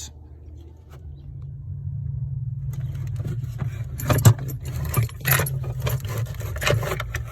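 Clinking and rattling of small metal objects being handled, starting about three seconds in, over a steady low hum.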